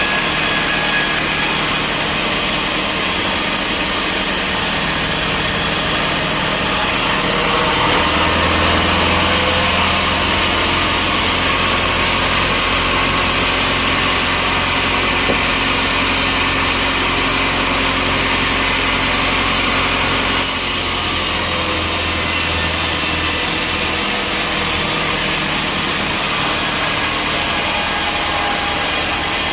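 Sawmill machinery running: steady engine and saw noise, with a deeper hum that sets in about seven seconds in and drops away about twenty seconds in.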